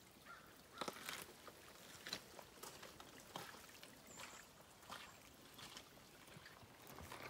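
Faint footsteps of a hiker scuffing over wet rock and gravel, irregularly spaced, over a faint trickle of spring water running across the rock.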